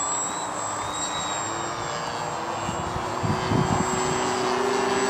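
Engines of two radio-controlled model warplanes in flight, one of them a DLE20 20cc two-stroke petrol engine, droning at two different pitches and growing louder toward the end as the planes come nearer. A few low thuds come about three seconds in.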